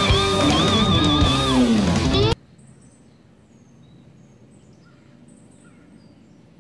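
Electric guitar music with bent, wavering notes that cuts off abruptly about two seconds in. After it comes a faint outdoor background with scattered short bird chirps.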